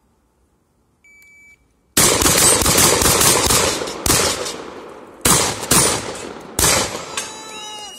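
A short electronic start beep about a second in. About a second later two shooters open fire with shotguns: a rapid run of loud blasts with echoing tails, then a few separate shots spaced roughly a second apart.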